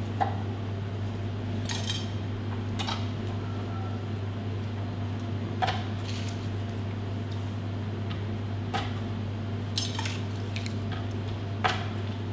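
A few light metallic clinks against a stainless steel bowl, spaced a second or more apart, as tomato spheres are picked out of it and set down on a board. A steady low hum runs underneath.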